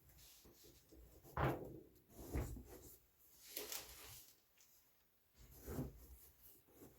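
Fabric storage baskets being handled: four short soft thumps and rustles, the loudest about one and a half seconds in.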